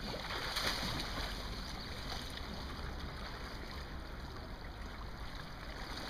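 Water splashing and sloshing as the yellow Water-Gate barrier's tarpaulin is pushed down into a shallow river and stood on, loudest about half a second in, then a steady rush of water.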